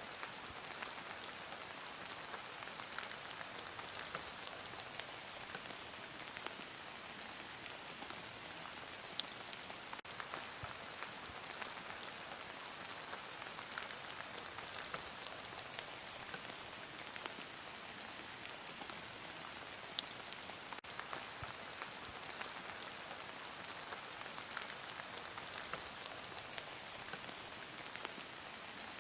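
Heavy rain falling steadily: an even hiss with scattered sharp ticks of single drops.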